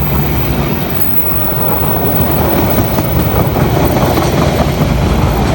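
Train passing over the rails, a loud, steady rush of wheel and rail noise with faint wheel squeal.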